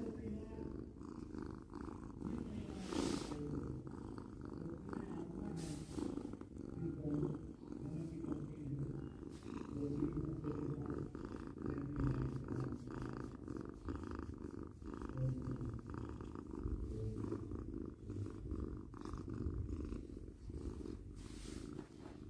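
Domestic cat purring continuously, with a few brief noises about three seconds in, around six seconds and near the end.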